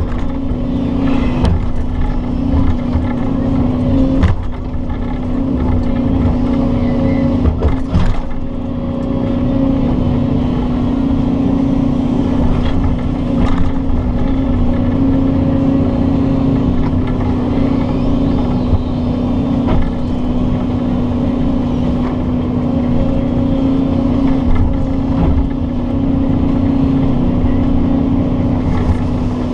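Doosan excavator's diesel engine running steadily under work, heard from inside the cab. A few short knocks come through about four and eight seconds in.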